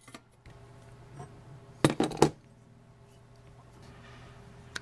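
Metal clinking on a vintage Clayton and Lambert brass blowtorch as pliers grip its burner valve fitting: three sharp clinks in quick succession about two seconds in, with light handling taps around them.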